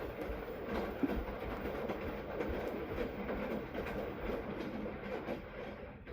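Washing machine running its wash cycle: a steady churning of the drum and wet load with scattered small clunks, which stops suddenly at the very end.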